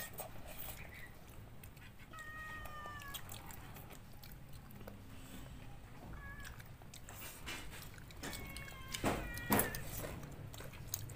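A cat meowing three times, the first and last calls drawn out and falling slightly in pitch, over soft chewing and eating sounds.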